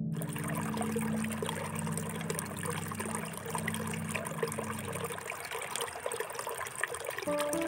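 Water trickling and splashing in a steady, crackly stream, as when a potted plant and its soil are watered or rinsed.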